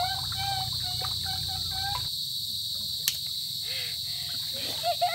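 Insects in the mangroves, crickets or cicadas, buzzing steadily at one high pitch, with a single click about three seconds in.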